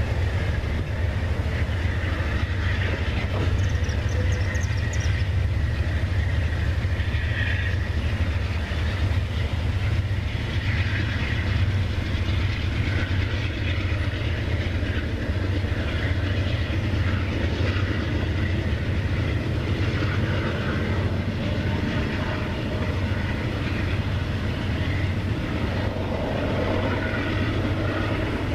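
Amtrak Superliner passenger train rolling away, its wheels clattering on the rails over a steady low rumble.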